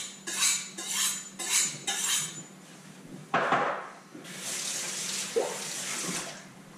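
A kitchen knife being sharpened, about five scraping strokes at two a second. Then a short clatter, and a kitchen tap running into the sink for about two seconds.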